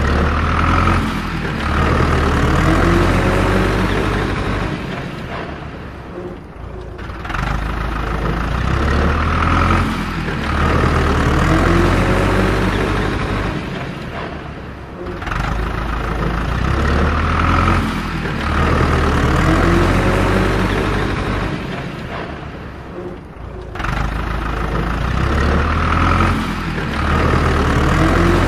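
Recorded truck engine sound effect running in a loop. The same pattern repeats about every eight and a half seconds, with a brief lull each time round.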